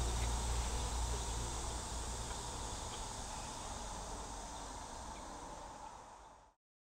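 Insects calling in a summer garden, a steady high-pitched hiss over a low background rumble. It fades out gradually and cuts off to silence near the end.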